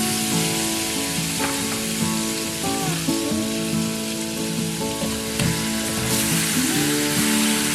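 Food frying in hot oil: a steady sizzle, over soft background music.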